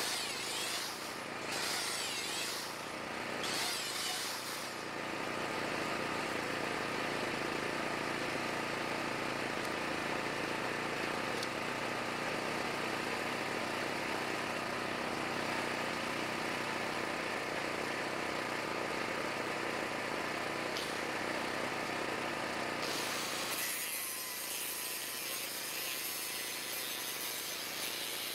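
Power-tool work on steel rebar and railroad ties: a few short bursts at the start, then a long steady motor run. About 23 seconds in, the sound changes to an angle grinder cutting through steel rebar.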